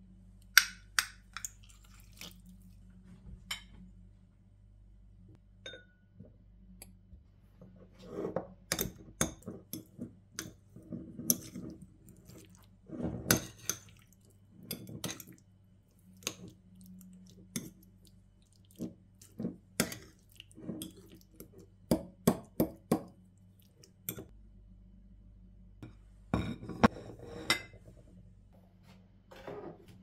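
A metal fork clinking and scraping against a ceramic bowl in quick irregular strokes, mashing avocado with crumbled white cheese. A few lighter clicks and drips come near the start as half a lemon is pressed in a handheld squeezer.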